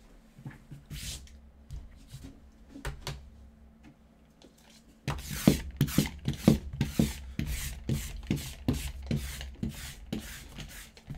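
A sticky lint roller rolled back and forth over a cloth-topped play mat in quick repeated strokes, making a rhythmic crackling rasp as it picks up bits of debris. Before that, for about five seconds, there is only quieter handling and rustling; the rolling starts abruptly after that.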